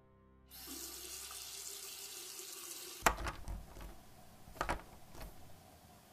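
Water running from a kitchen faucet into a sink, starting about half a second in, then several sharp knocks and clinks as dishes are handled, the loudest about three seconds in.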